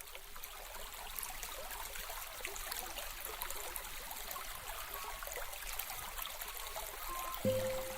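Running water trickling and babbling like a small stream, fading in at the start. Near the end a low musical note comes in.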